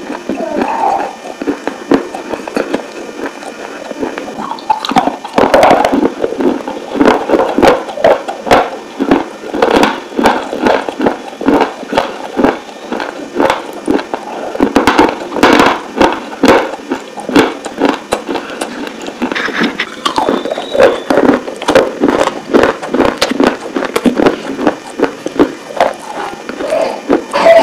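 Close-miked crunching and chewing of hard, dry baked clay pieces: a dense run of sharp cracks and crackles, heavier in a few bouts.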